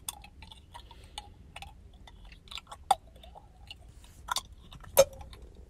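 Scattered small clicks and smacks close to the microphone, over a low steady rumble of a car cabin. One sharper click comes about three seconds in, and the loudest about five seconds in.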